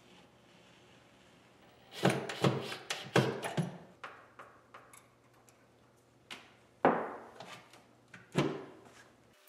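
Small hinged door of an MDF cabinet being swung and knocked shut against its frame: a quick run of about four knocks about two seconds in, then two single thuds near the end, a second and a half apart.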